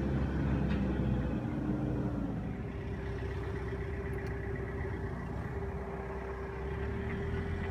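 A motor-vehicle engine running steadily at idle, a low drone with a steady hum joining it about two and a half seconds in.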